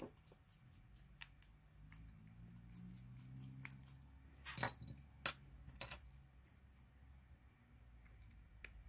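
Light handling, then three small sharp metallic clicks with a brief tinkling ring, a little over half a second apart, near the middle: the tiny back-cover screws of a Samsung Gear S2 Classic smartwatch being unscrewed and handled.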